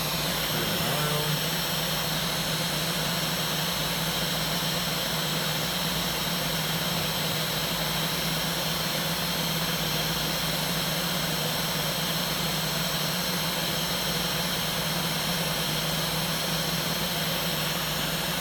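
500 W air-cooled CNC spindle motor running at a steady speed, a constant hum with a high whine that does not change.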